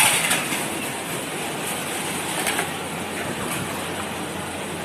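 Steady background noise of a hawker centre dining area, an even wash of room noise with no clear voices, with a brief louder burst right at the start.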